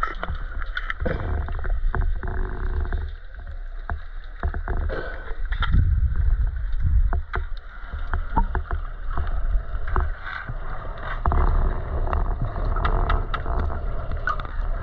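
Water sloshing and lapping close to the microphone, over a steady low rumble, with many small clicks and splashes scattered throughout.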